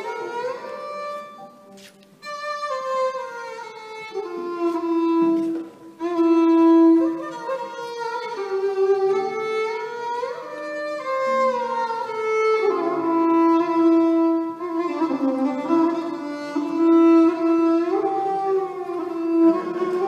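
Violin playing a slow, free melody with slides between notes and long held notes, pausing briefly about two and six seconds in.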